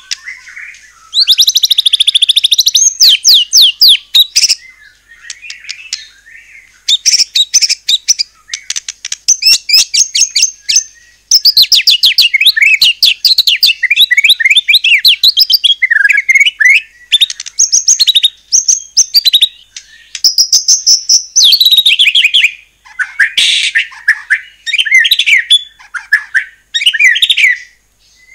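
White-rumped shama (murai batu) in full song: loud, fast runs of rapid trilled notes and whistled phrases, delivered in bursts with short pauses between them.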